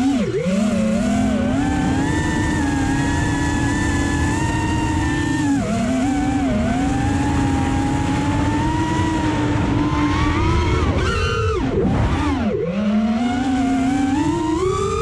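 FPV quadcopter's brushless motors and propellers whining, the pitch gliding up and down with the throttle. The whine drops sharply and climbs back several times, when the throttle is cut and reapplied, and rises steadily near the end, over a rushing noise.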